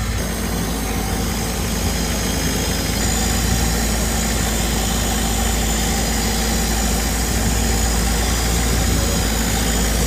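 Boat engine running steadily with a low, even drone.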